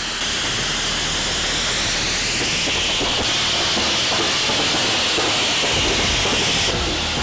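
Small steel rocket engine burning with pure bottled oxygen, firing continuously: a loud, steady hissing jet with a high whistling edge.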